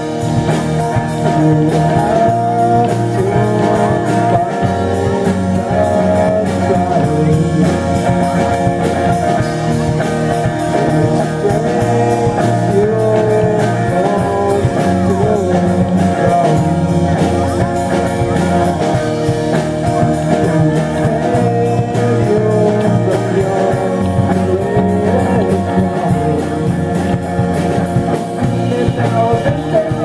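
Live rock band playing a song: drum kit, electric bass and electric guitar, with a sung lead vocal over them.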